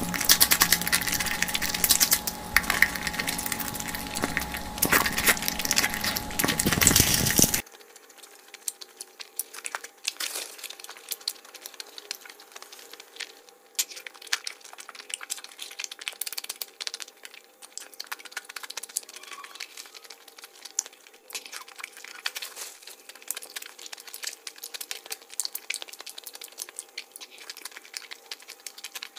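Close-miked eating: dense chewing and crunching for about the first seven seconds, then after a sudden cut much quieter, with scattered wet mouth clicks and smacks of chewing.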